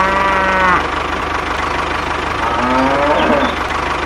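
A cow mooing twice, once at the start and again about two and a half seconds in, over a tractor engine running steadily with an even low beat.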